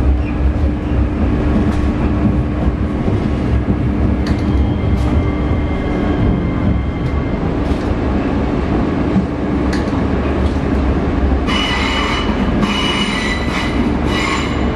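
Metro train running, heard from inside the carriage: a steady low rumble and hum with an occasional click from the rails. Near the end, as it pulls into the station, the wheels give a high squeal for about three seconds in two stretches.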